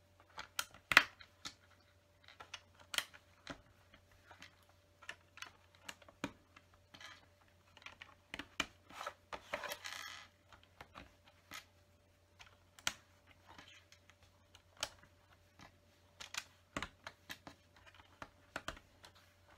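Small white LEGO bricks clicking as they are pressed onto studs and handled on a table. The clicks are sharp and irregular, the loudest about a second in, with a short burst of rattling about halfway through.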